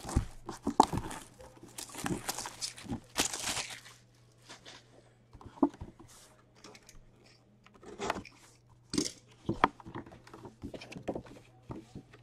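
Plastic shrink wrap crinkling and tearing as it is pulled off a cardboard box, a dense rustle at first that thins out into scattered sharp crackles and taps. Near the end the box's cardboard lid flap is lifted.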